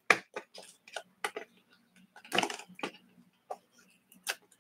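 Fingers picking and peeling sealing tape off a small cardboard box: a string of small clicks and scratches, with a longer rasping peel about two and a half seconds in.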